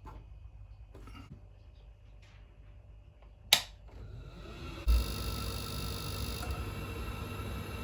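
Ideal Logic 30 gas boiler cycling: a sharp click about halfway in, then a rising whir as the fan spins up, a low thump, and a steady rushing hum with a low drone under it.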